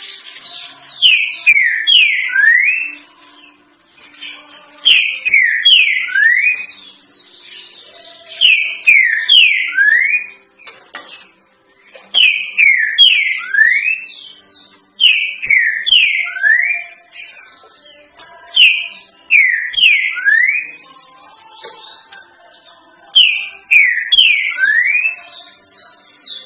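Green-winged saltator (trinca-ferro) singing its '3 notas boi' song: a short phrase of loud, slurred whistled notes, the last one rising, repeated seven times about every three and a half seconds. Fainter high chirps come between the phrases.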